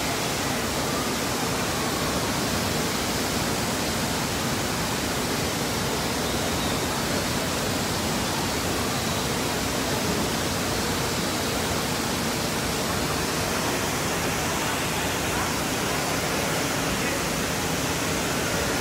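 Steady rushing of moving water in an indoor water park's lazy river: a constant, even noise with no breaks.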